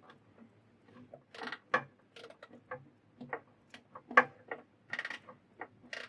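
A wrench tightening the mini lathe's headstock mounting bolts down onto its steel bed: irregular metallic clicks and knocks, with short rattling runs about a second and a half in and again about five seconds in.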